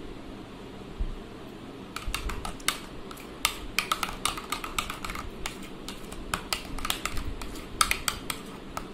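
Metal spoon stirring a thick mayonnaise-and-ketchup dressing in a plastic bowl, clicking and scraping against the bowl. The quick, irregular run of taps starts about two seconds in.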